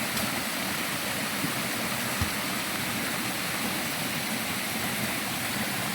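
Small forest waterfall splashing, a steady rush of falling water, with one brief low thump a little over two seconds in.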